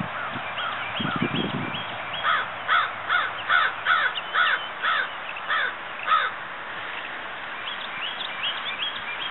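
A crow cawing: a run of about ten caws, evenly spaced, starting about two seconds in and stopping a few seconds later.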